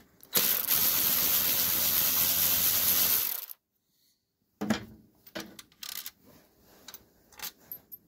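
Ratchet wrench clicking steadily for about three seconds while backing out a side-cover bolt on a Briggs & Stratton 5 hp flathead engine. After a short silent gap come scattered light metal clicks and taps.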